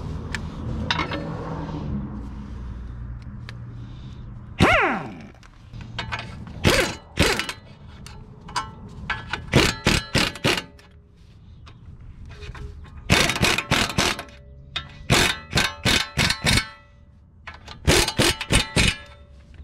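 Sharp metallic clanks and knocks, some single and some in quick runs of several strikes, from tools on the shock absorber mounting nuts of a Fox-body Mustang. One falling ringing tone about five seconds in.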